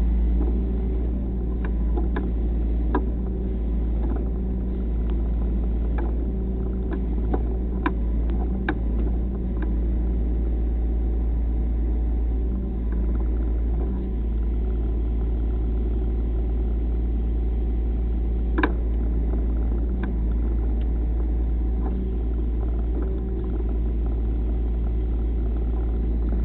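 An engine running steadily with a deep rumble while a tipped-over tractor is winched out of a washout. Scattered sharp snaps and clicks come through over it, the loudest one well past halfway.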